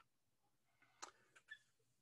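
Near silence: room tone, with two faint short clicks about a second and a second and a half in.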